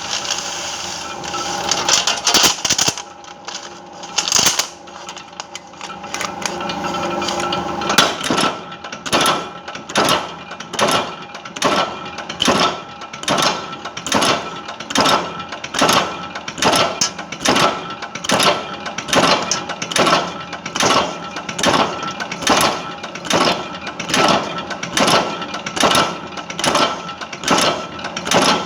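Machine clacking in a steady rhythm, about three strikes every two seconds, over a steady hum. Before the rhythm settles, about eight seconds in, the clatter is irregular.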